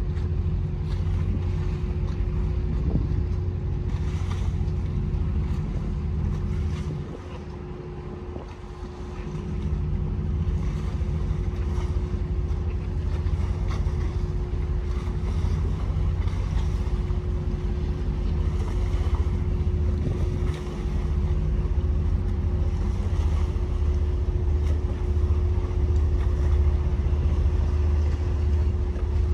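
Steady low engine rumble of a large motor yacht under way, with a constant hum over it and wind on the microphone. The rumble dips briefly about seven seconds in.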